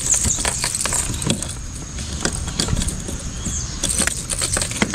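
Irregular metallic clicks and rattles of fishing pliers and the lure's treble hooks as a hook is worked free from a freshly caught snook's mouth.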